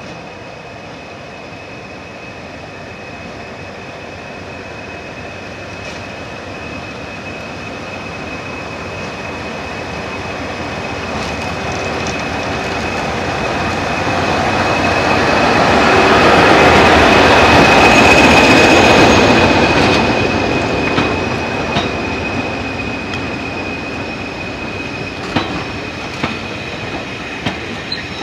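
Class 20 diesel locomotive hauling coaches into the platform. Its engine grows steadily louder as the locomotive comes up and passes close, then fades as the coaches roll by, with a few sharp clicks of wheels over rail joints near the end. A steady high whine sounds over it throughout.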